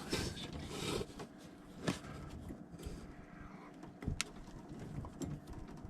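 Handling noise from a Sharkbite slip-connect fitting being worked onto a copper water pipe in a tight space, with a few sharp clicks and knocks, the clearest about two seconds and four seconds in.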